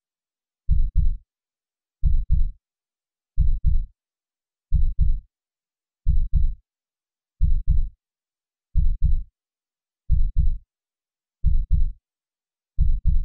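Heartbeat sound: a deep double thump (lub-dub) repeating slowly and evenly, a little under every second and a half, with silence between the beats.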